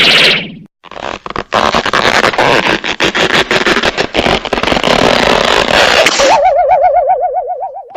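Cartoon sound effects: a long, noisy, rattling clatter full of rapid clicks, then, about six seconds in, a warbling tone that wobbles quickly up and down in pitch.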